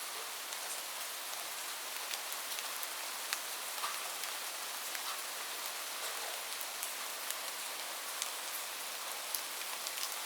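Steady rain falling, a constant hiss with many separate drops ticking sharply on a surface.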